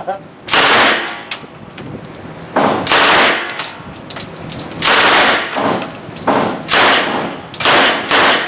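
Fully automatic gun fired in short bursts of a few rounds each: six quick rattles of shots, each about half a second long, spaced unevenly.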